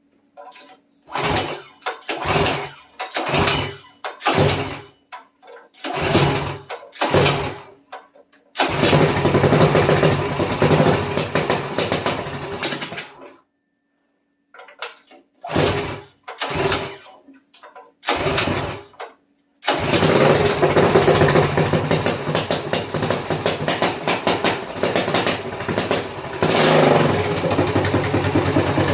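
Modified Predator 212 single-cylinder engine on a mini-bike being pull-started: about seven short cranking bursts, then it catches about nine seconds in, runs for roughly four seconds and dies. Four more pulls follow, and it fires about twenty seconds in and keeps running.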